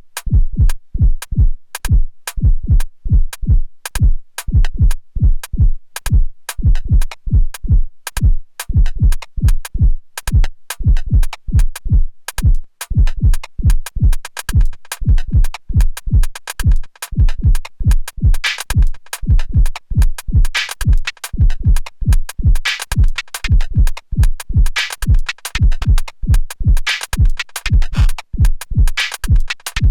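Erica Synths Perkons HD-01 analog drum synthesizer playing a looped pattern: a steady pulse of deep, booming kick drum hits, with bright, hissy hat-like hits coming in and out in clusters from about eighteen seconds in.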